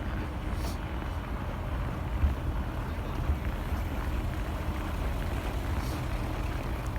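Wind rumbling and buffeting on the microphone in a snowstorm, over a steady outdoor hiss.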